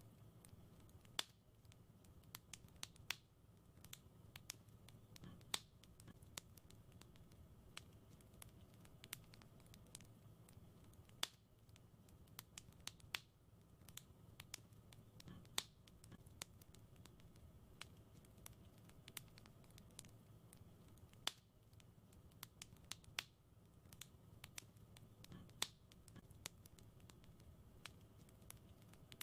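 Wood fire crackling in a fireplace: irregular sharp pops and snaps, a dozen or so louder ones among many small ticks, over a faint steady low rumble.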